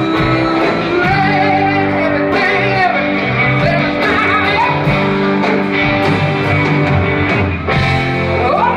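Live rock band playing loud: electric guitars, bass and drums, with a horn section on stage, and melody lines gliding over steady low bass notes.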